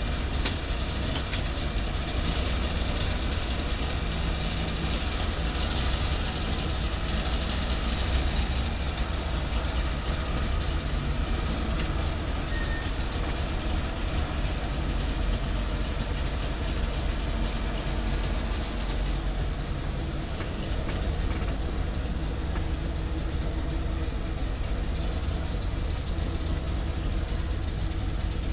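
1966 DKW-Vemag Belcar's three-cylinder two-stroke engine running steadily as the car is driven, heard from inside the cabin. A short click about half a second in.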